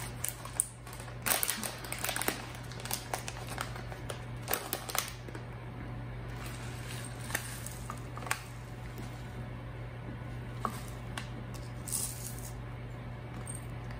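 Crinkling and clicking of a plastic bag of crushed red pepper flakes being opened, in bursts during the first five seconds. Then scattered light ticks and scrapes as the flakes are scooped out with a small measuring spoon and poured into a plastic funnel.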